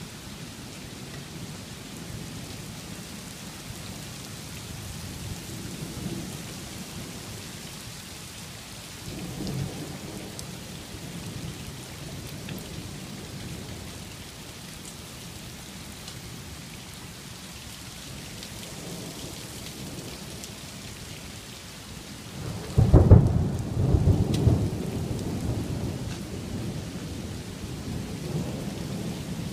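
Hail and heavy rain falling steadily, a constant hiss. About two-thirds of the way through comes a loud low rumble that fades over a few seconds.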